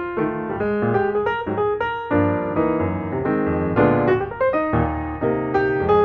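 Background piano music, a flowing melody of notes played one after another with chords beneath.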